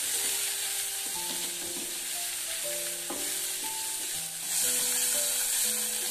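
Shallots, garlic, dried anchovies and chilies sizzling in a little oil in a small saucepan while a spatula stirs them. This is the spice base being sautéed until fragrant. The sizzle grows louder about four and a half seconds in.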